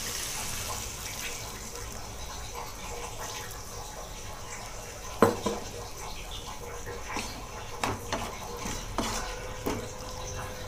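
Water poured from a jug into a hot pan of spiced cauliflower, with a steady hiss for the first few seconds. About five seconds in comes a sharp knock, then a wooden spatula clacking against the pan as the curry is stirred.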